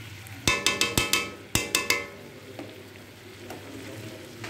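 Metal spoon knocking against a metal wok, a quick run of ringing clanks and then a second run about a second later.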